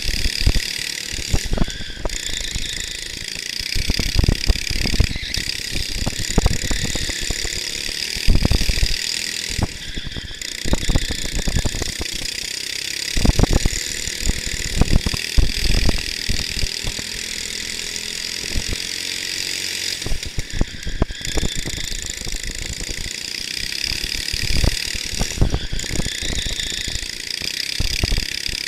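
Racing kart's engine running at speed through a lap, heard from the onboard camera, its pitch rising and falling through the corners. Irregular low buffeting hits the onboard microphone throughout.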